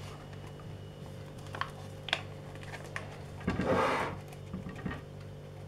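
Quiet kitchen handling sounds: a few light clicks, then a brief rustle about three and a half seconds in, over a steady low hum.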